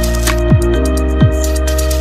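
Electronic background music with a steady beat: deep kick drums that drop in pitch, held synth notes and hi-hats.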